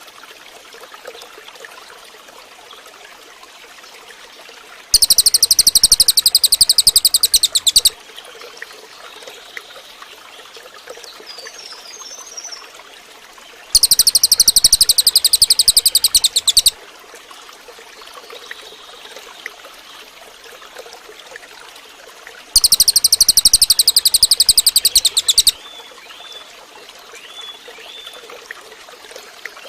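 Cililin (racket-tailed treepie) calling in three loud bursts, each about three seconds of rapid, high-pitched rattling notes, roughly nine seconds apart. Faint chirps sound between the bursts.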